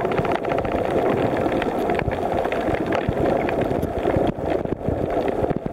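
Underwater noise picked up by a submerged camera: the steady drone of a boat motor carried through the water, with scattered short clicks.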